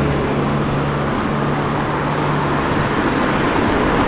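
Road traffic at a roundabout: a vehicle engine hums steadily for the first two and a half seconds, then tyre and engine noise rises as a car drives up close near the end.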